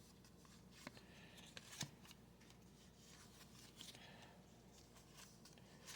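Faint handling of baseball trading cards: soft slides and light clicks as cards are flipped through one by one, with a couple of sharper ticks about one and two seconds in.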